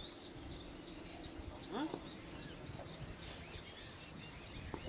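Open-air field ambience: scattered bird chirps over a steady high-pitched hiss, with a brief distant shout about two seconds in.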